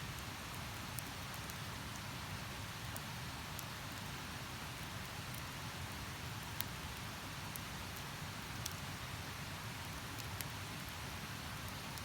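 Wood campfire crackling, with sharp pops every second or so, over the steady rush of a river.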